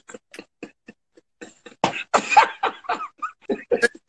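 Men laughing hard in short breathy, wheezing bursts, about three or four a second, swelling into a louder voiced laugh about two seconds in, heard over a phone livestream.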